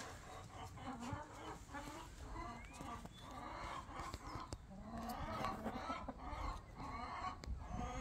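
Brahma chickens clucking in a run of short, repeated clucks.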